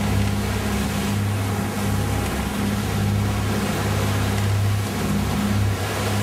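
Yacht's engine running steadily with a low hum, over a continuous rush of wind and water.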